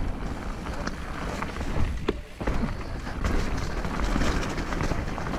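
Downhill mountain bike riding down a wet, muddy trail: a steady rush of wind and tyre noise, broken by scattered sharp clatters from the bike over bumps.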